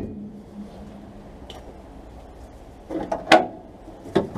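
Hand tools clanking and knocking as they are handled: a brief low ring at the start, then a cluster of sharp knocks and clinks about three seconds in and one more knock near the end.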